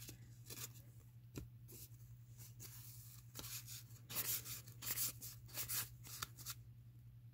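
1987 Fleer baseball cards sliding and flicking against each other as a stack is thumbed through by hand: soft, scattered rustles and snaps, busiest from about four to six seconds in.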